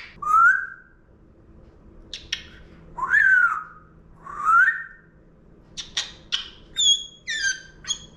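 Congo African grey parrot whistling: three rising whistles in the first few seconds, then quick clicks and higher, chirpy whistles near the end.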